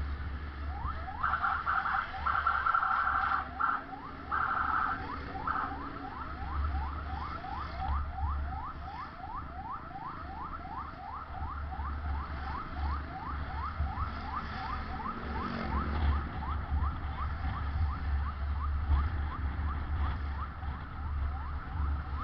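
Ambulance siren sounding, first in short bursts of steady tone, then changing about six seconds in to a fast yelp of rising sweeps, about three a second, which fades near the end. A low rumble runs underneath.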